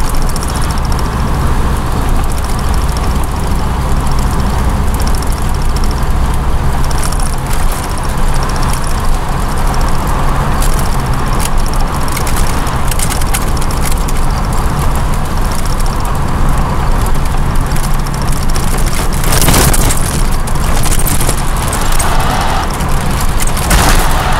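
Inside the cabin of a 1983 Pontiac Trans Am on the move: a steady low engine drone under constant road and wind noise, with a brief louder rush of noise about three quarters of the way through.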